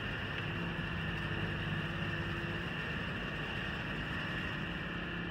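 Overhead automatic cubicle-bedding machine running as it travels along the shed and drops bedding into the cubicles: a steady mechanical hum with a high, even whine over it.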